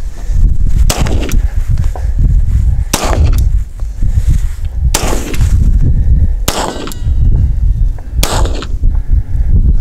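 Five single .22LR pistol shots from a Ruger Mark IV 22/45, spaced about one and a half to two seconds apart, each sharp crack followed by a short ring-out, over a steady low wind rumble on the microphone.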